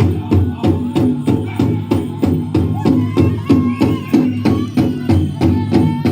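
Powwow drum group playing a chicken dance song: a large shared drum struck in a fast, steady beat of about four strikes a second. Singers join in high-pitched from about halfway through.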